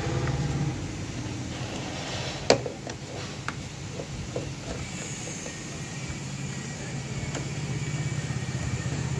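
Small metallic clicks and taps of a screwdriver on a scooter battery's terminal screws, the sharpest about two and a half seconds in, over a steady low hum.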